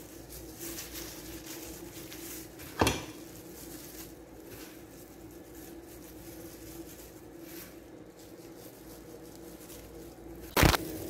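Gloved hands sprinkling a brown sugar, cinnamon and cocoa mixture over rolled-out dough, a faint soft patter and rustle over a steady hum. Two sharp knocks of dishware on the counter stand out, about three seconds in and again near the end.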